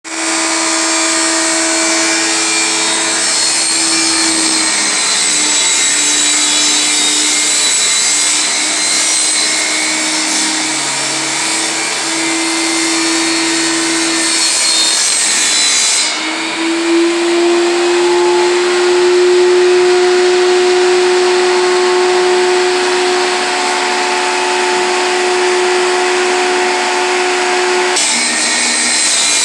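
A machine motor running steadily and loudly, with a hum that wavers in pitch; the sound changes abruptly twice, about halfway through and near the end.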